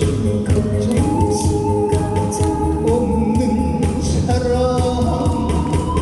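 Male trot singer singing live into a microphone over instrumental accompaniment with a steady beat.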